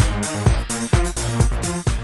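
Electronic dance music with a steady beat, about two kick-drum strokes a second.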